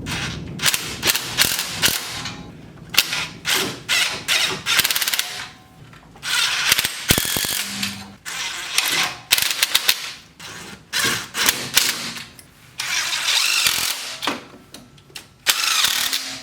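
Ratchet wrench clicking in repeated quick runs, with metal tool clinks, while exhaust header bolts are tightened.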